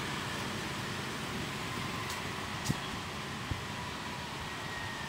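Steady outdoor background noise, an even hum and hiss, with two brief sharp clicks about two and a half and three and a half seconds in.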